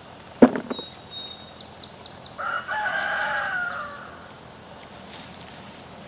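A rooster crows once, a single call of about two seconds in the middle, over a steady chorus of crickets. A sharp knock, the loudest sound, comes about half a second in.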